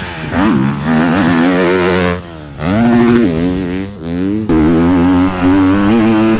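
Four-stroke motocross bike engine revving hard, its pitch climbing and dropping several times as the throttle is opened and rolled off, with a brief dip in level about two seconds in.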